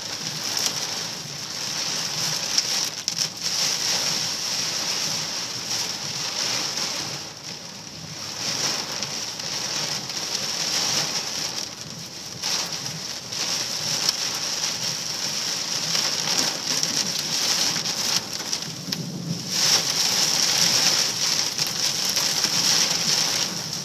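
Hail and heavy rain drumming on a vehicle's roof and windows, heard from inside as a dense, steady clatter of many small hits.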